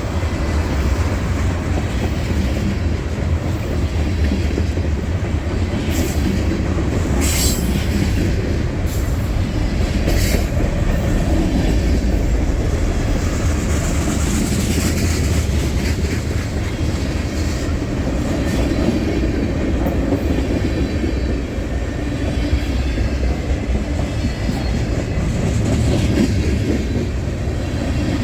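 CSX freight train rolling past close by: a steady rumble of steel wheels on the rails, with clicking over the rail joints and a brief high wheel squeal about seven seconds in.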